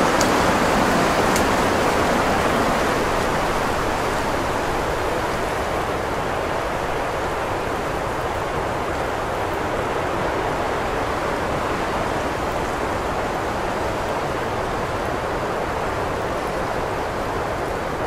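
Winter wind blowing as a steady rush, a gust easing off over the first few seconds and then holding level.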